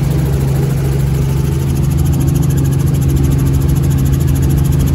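Helicopter in flight heard from inside the cabin: a loud, steady drone of engine and rotor with a strong low hum.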